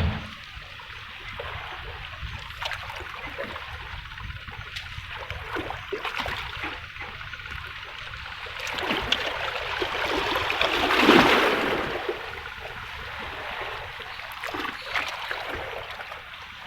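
Seawater lapping and trickling against breakwater rocks, with one larger wave washing in, loudest about eleven seconds in, then draining away.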